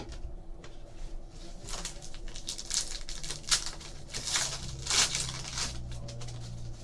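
Trading cards being handled and flipped through, with irregular rustling, sliding and crinkling of cards and pack wrapper.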